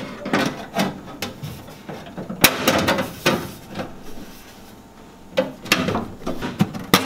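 Aluminium battery box and its sheet-metal lid knocking and clattering as they are fitted into place, a string of separate sharp knocks with the loudest about two and a half seconds in.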